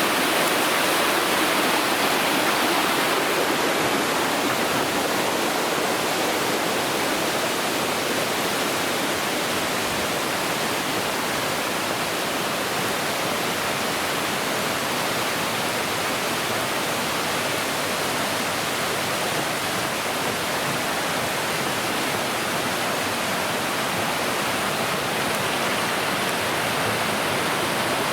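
Waterfall: water rushing down steadily, a continuous even rush without pauses.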